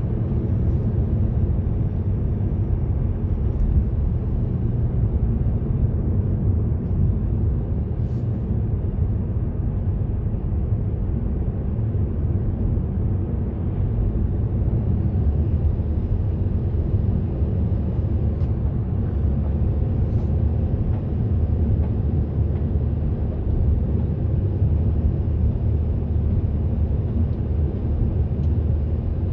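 A car driving along at a steady speed, its engine and tyres on the road making a steady low rumble, with a couple of faint clicks.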